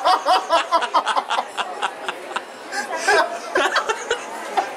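People laughing: a run of quick, repeated chuckles, with some talk mixed in.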